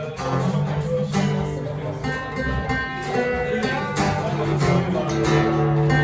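A band playing an instrumental passage of a rock song, with guitar to the fore over held bass notes.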